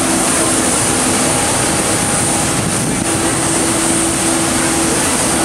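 Jet engines of a twin-engine widebody airliner rolling along a wet runway: a loud, steady rush of noise with a steady hum underneath and a thin high whine.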